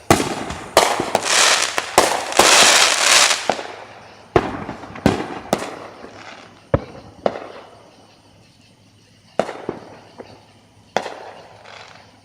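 Fireworks going off: a quick run of sharp bangs that runs into a dense crackling stretch over the first three or four seconds, then single reports about every half-second to second and a half, thinning out toward the end, each bang trailing off in a short echo.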